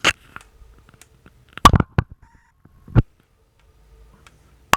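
A faint steady high-pitched whine from an Nvidia Shield TV's AC power adapter, the fault being demonstrated, broken by about five sharp knocks and clicks, the loudest a double knock a little under two seconds in.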